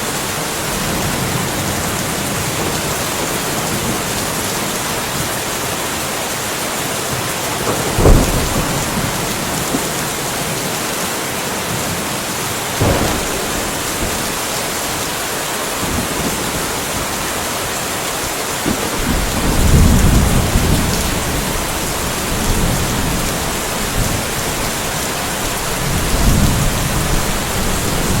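Steady rain falling, with thunder: a sharp crack about eight seconds in, a smaller one some five seconds later, then low rolling rumbles in the second half.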